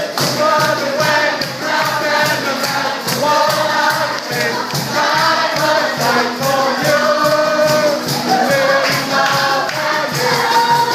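A group of voices singing a lively worship song together over music with a steady percussive beat.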